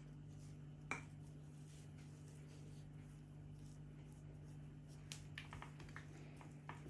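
Faint handling sounds of hands pinching salt from a glass bowl and packing it into cross-cut limes: one sharp click about a second in and a quick run of small clicks and taps near the end, over a steady low hum.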